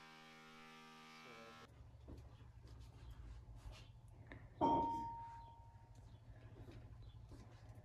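Quiet room tone with a faint low hum and scattered light clicks. A single ding comes a little past halfway and rings on for about a second as it fades.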